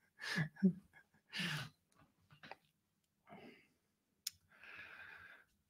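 A quiet pause with a few short, faint breaths and a single sharp click about four seconds in.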